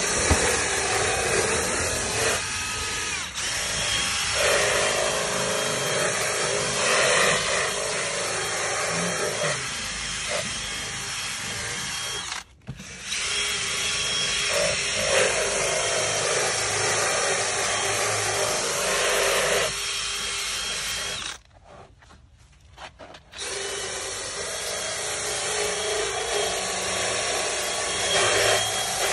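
Cordless drill spinning a scrub brush against a vinyl car door panel. The whirring scrub stops briefly about halfway, and again for about two seconds later on, before starting up again.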